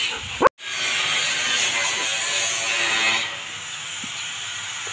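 Steady wet hissing of water and shampoo lather as a soaped dog's coat is scrubbed by hand. The sound cuts out abruptly about half a second in, and is quieter in the last second and a half.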